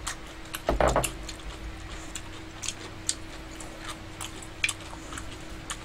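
Close-up eating sounds: scattered small clicks and smacks about one every half second to second, with a louder brief noise just under a second in, over a faint steady hum.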